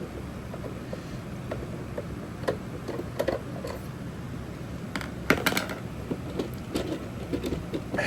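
Irregular clicks, taps and scrapes from a plastic computer speaker cabinet being handled and unscrewed during a teardown, with a louder cluster of knocks about five seconds in, over a steady low hum.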